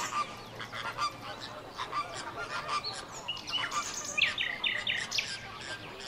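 A flock of flamingos honking, many short goose-like calls overlapping, with a quick run of four calls about four seconds in.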